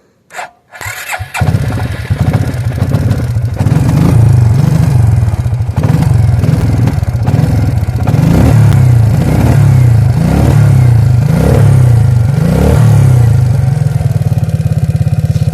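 Suzuki King Quad ATV's single-cylinder engine restarting after stalling in deep snow: a brief crank, then it catches about a second in. It is revved up and down repeatedly, then settles to a steady idle near the end.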